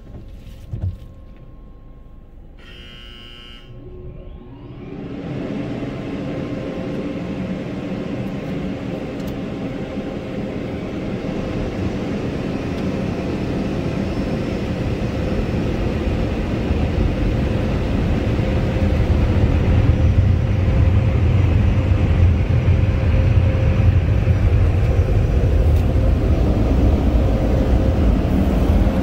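A short buzzer sounds about three seconds in, then the automatic car wash's air dryers start up, their blowing rising over several seconds and building into a loud, steady rush with a deep rumble, heard from inside the car.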